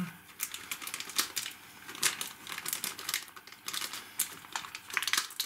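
Small plastic parts bag crinkling as it is handled, with irregular light crackles and clicks.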